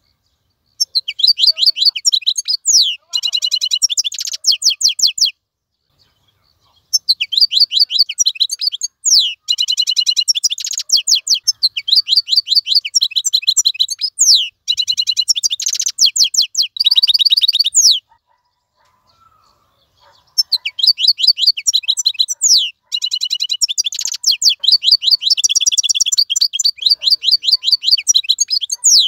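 A wild-caught European goldfinch singing in long bouts of fast, high twittering with quick repeated notes and short downward slurs, breaking off twice briefly, about five and eighteen seconds in.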